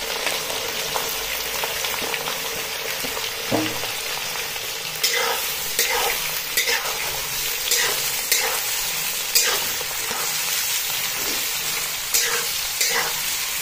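Freshly added sliced onions sizzling in hot mustard oil in a kadhai, the first stage of frying them to golden. A steel spoon stirs them, with short scraping strokes against the pan about once a second from midway.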